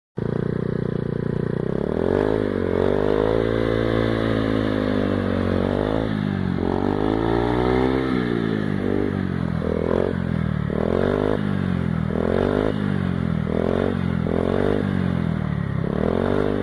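KYMCO Agility 125 scooter's single-cylinder four-stroke engine running through an aftermarket full-system exhaust: idling for a couple of seconds, then revved up and let back down twice in long sweeps, then blipped in quick throttle stabs about once a second.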